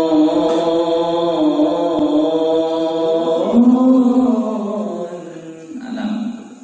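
A man's voice reciting the Qur'an in the melodic tilawah style, holding long ornamented notes that slide between pitches. The phrase fades away near the end.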